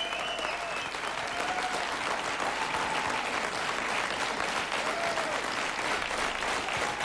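Studio audience applauding steadily, with faint voices in the crowd now and then.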